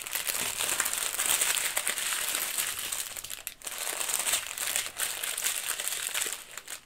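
Small plastic bags of diamond painting drills crinkling as a strip of them is handled and laid out on a table, with brief pauses in the rustling.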